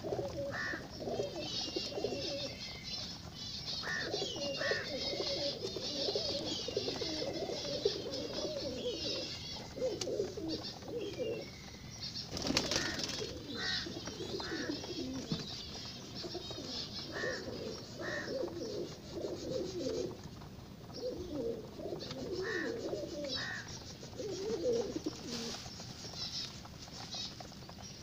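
A flock of domestic pigeons cooing almost continuously, with wings flapping and a louder flutter about twelve and a half seconds in. Thin, high chirping runs above the cooing.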